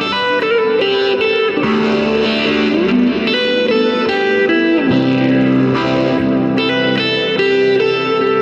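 Electric guitar played through a chain of EarthQuaker Devices pedals (Special Cranker overdrive, Hoof fuzz, Grand Orbiter phaser, Dispatch Master delay and reverb): held, overdriven notes and double-stops, several sliding from one pitch to the next.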